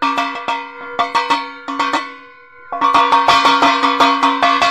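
A large metal basin beaten with a wooden stick, ringing like a gong: a run of clanging strikes, a pause of under a second while it rings on, then a faster run of about five strikes a second.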